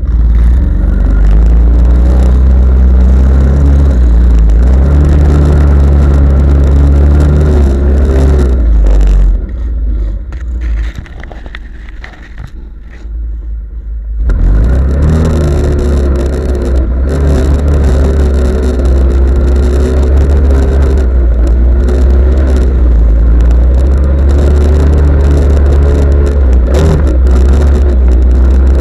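Off-road vehicle engine revving hard, its pitch rising and falling. It eases off for a few seconds about a third of the way in, then revs up again.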